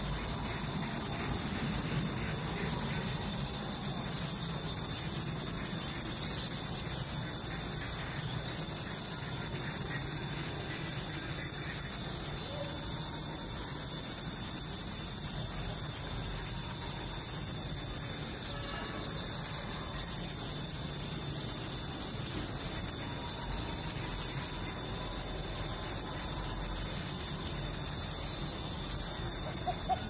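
Steady high-pitched insect shrilling in two unbroken tones, one high and one higher.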